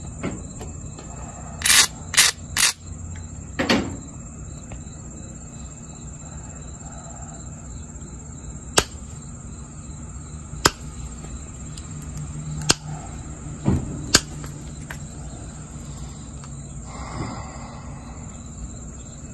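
Pressure flaking a jasper point with a metal-tipped pressure flaker: single sharp clicks as small flakes snap off the stone's edge, four of them about two seconds apart in the middle of the stretch. Near the start, a few louder, longer rustling knocks as the point and leather pad are handled.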